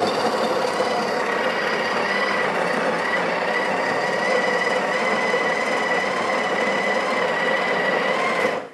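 Breville Barista Express's built-in conical burr grinder running, grinding a single dose of coffee beans into the portafilter. It is a loud, steady grinding noise with a high steady tone; it starts suddenly and stops just before the end.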